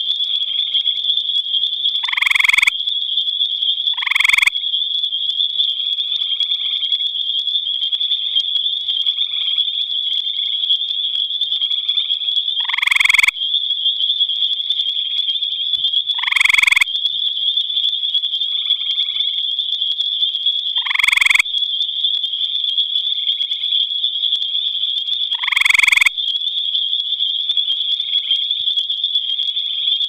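Gray tree frog calling: six short, loud trills at irregular spacing, with fainter trills from other gray tree frogs in between. A steady high-pitched drone runs underneath.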